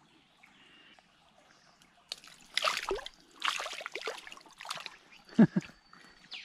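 Shallow stream water splashing and sloshing as a freshly unhooked small brown trout is dropped and thrashes around the landing net: a run of splashes starting about two seconds in, with a sharp knock near the end.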